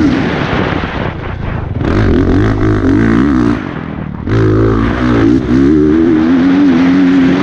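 Honda CRF450RX single-cylinder four-stroke motocross engine working hard through a lap, its pitch climbing and falling with the throttle. It eases off briefly about a second in and again around four seconds, then pulls strongly again.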